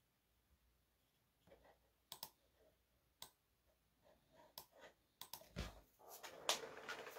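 Faint, scattered clicks and taps, a few seconds apart, then a short stretch of rustling near the end.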